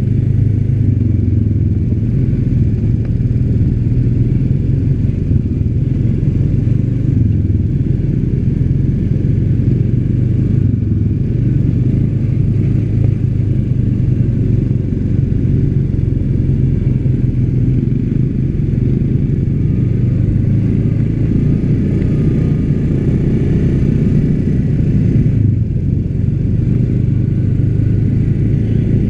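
ATV (quad bike) engine running steadily at cruising speed, heard up close from the rider's own machine as it drives along a dirt track.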